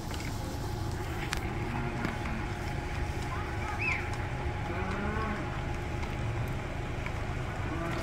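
A herd of cattle mooing, many low calls overlapping into a steady drone, with a few short high chirps above it.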